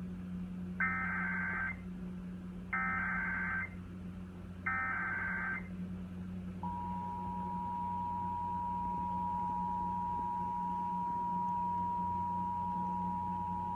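Emergency Alert System broadcast alert: three bursts of SAME digital header data, each about a second long and two seconds apart, then about six and a half seconds in the two-tone attention signal starts and holds steady. A low hum runs underneath.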